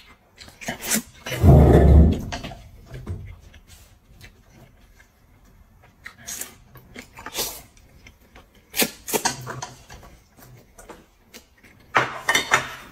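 Close-miked eating sounds: crunchy bites and chewing of a raw Chinese scallion stalk, noodles being slurped, and a heavy low burst about one and a half seconds in. Near the end, a cluster of sharp clacks as plates are set down on a glass tabletop.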